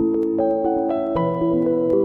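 Background music: gentle, ambient-style piece of sustained plucked or keyboard notes changing in a slow melody.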